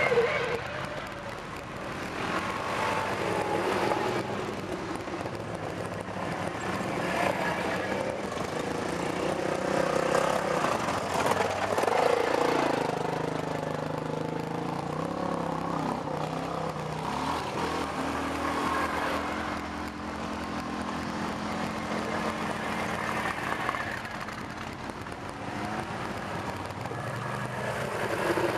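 Several quad bikes (ATVs) ride past one after another on a muddy track, their engines running at low revs. The sound swells as each machine comes close, loudest near the start and again near the end.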